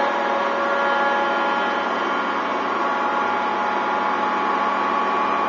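Articulated dump truck's diesel engine and drivetrain running at a steady speed, heard from inside the cab: a constant drone with a steady whine of several even tones.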